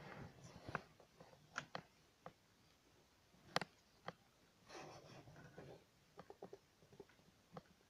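Faint handling noise of a camera held against clothing: soft fabric rustling and scattered light clicks and taps, the sharpest click about three and a half seconds in.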